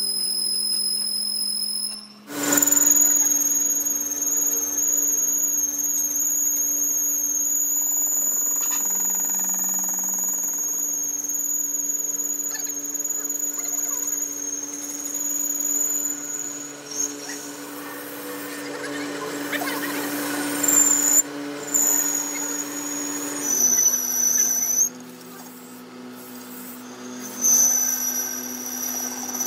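Metal lathe turning a steel workpiece: the cutting tool gives a steady high-pitched squeal over the lathe's hum, and the pitch steps to a new note a few times as the cut changes. The sound drops off for a couple of seconds near the end, then comes back.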